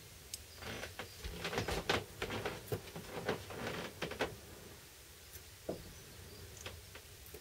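A quick flurry of small clicks and light taps lasting about three seconds as metal tools are lifted off the chip on the circuit board, followed by a few scattered clicks.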